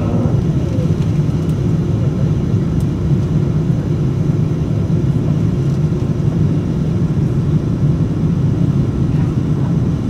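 Steady cabin roar of an Airbus A350-900 climbing out after takeoff: its Rolls-Royce Trent XWB engines and the rushing airflow, heard from inside the cabin as a deep, even rumble. A faint falling whine fades out in the first second.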